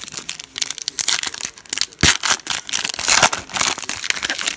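The shiny wrapper of a Panini NBA Hoops trading-card pack being torn open, crinkling and crackling in quick sharp bursts, with a single thump about two seconds in.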